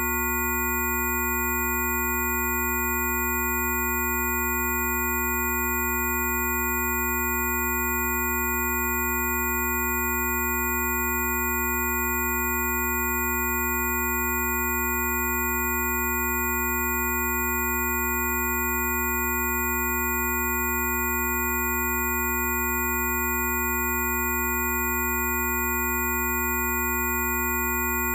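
Rife frequency tones: several electronically generated pure tones sounding together, from a deep low hum up to thin high whistles, held perfectly steady with no change.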